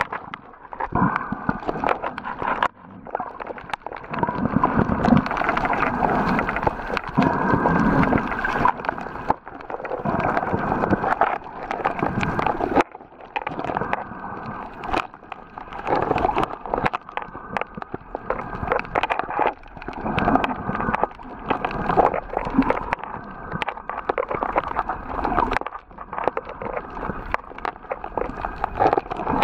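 Water sloshing and gurgling around a camera held underwater, muffled and swelling and fading every few seconds, with many scattered sharp clicks.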